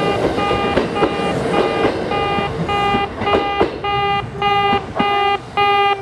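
Kintetsu in-station level crossing warning sounder, the older type on platforms 1 and 2, sounding its 'pee-pee' tone: a nasal, reed-like beep repeating about two and a half times a second, a lower tone joining about halfway. A train's running noise fades out beneath it in the first half.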